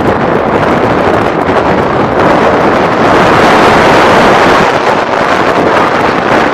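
Heavy wind buffeting the microphone aboard a moving tour boat: a loud, steady rush with no pitch in it.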